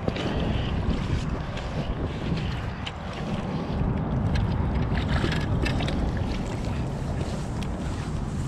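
Wind rumbling over the microphone, with small waves lapping against shoreline rocks and a few light clicks from the landing net being handled.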